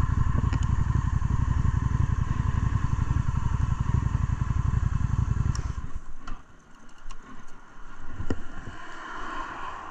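Honda Shadow ACE 750's V-twin engine running steadily while the bike stands still, then cutting off abruptly about six seconds in, followed by a few faint clicks.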